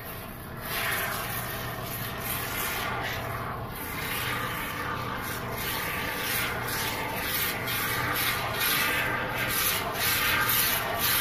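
Can of Great Stuff expanding polyurethane foam hissing as foam is pushed out through its straw nozzle, in uneven spurts that start about half a second in.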